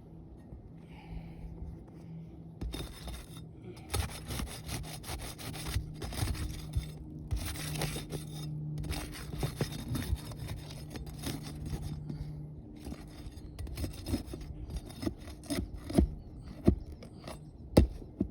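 Scraping and rubbing on roof shingles in irregular strokes, as a wind-creased shingle is worked loose for repair, with a few sharp knocks near the end.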